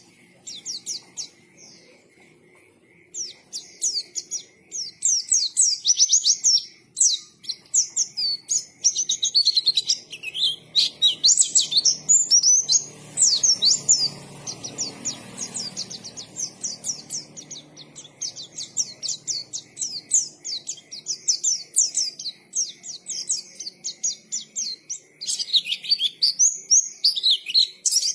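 Pleci (white-eye) singing a long, fast, loud stream of high chirps and sweeping twitters, barely pausing except for a brief lull near the start.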